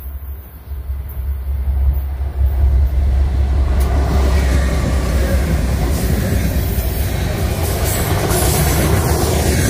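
BNSF grain train passing close by: the lead diesel locomotives' engines rumble louder over the first few seconds as they go past. Then come the steady rolling noise and rattle of covered hopper cars' wheels on the rails.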